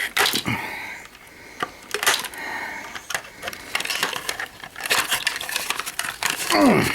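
Clicks, knocks and scraping of metal and plastic parts being handled and tossed down as a battery backup unit is stripped for scrap.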